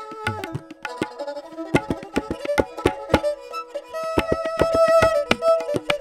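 Instrumental Nepali background music: tabla strokes under a held, sliding melody on bowed sarangi and flute.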